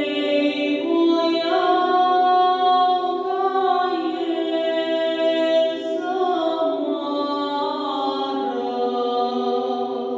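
A woman singing a slow song unaccompanied, holding long notes for a second or more and stepping from one pitch to the next.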